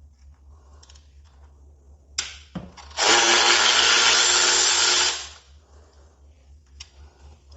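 Handheld power drill running for about two seconds, after a couple of clicks, while fasteners on a motorcycle's primary cover are worked.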